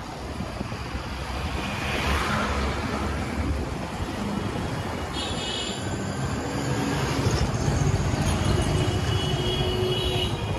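City street traffic heard from a moving motorcycle: a steady rumble of engines and road noise that builds slightly. Short high tones sound twice, about halfway through and again near the end.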